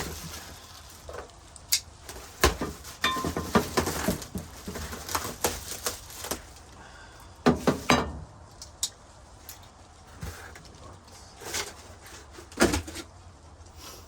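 Tool box caster wheels and their metal nuts and bolts being handled and set down, clinking and knocking in irregular knocks, with a busier run of clatter in the middle and a few louder knocks later.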